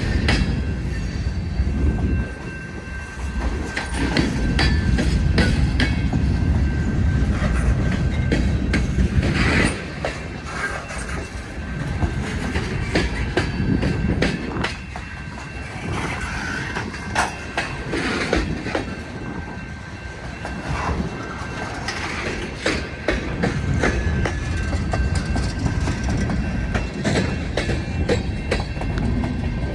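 Freight train cars rolling past, wheels clacking over rail joints in an irregular run of clicks above a steady low rumble, with a thin, steady wheel squeal.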